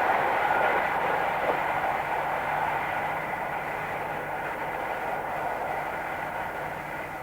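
Electric locomotive-hauled train going away at speed, its steady wheel-on-rail noise fading gradually.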